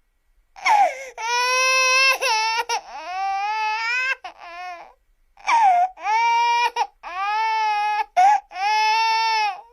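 Baby crying: a run of loud, high wails, each about half a second to a second and a half long, broken by short catches of breath, with a longer pause about halfway through.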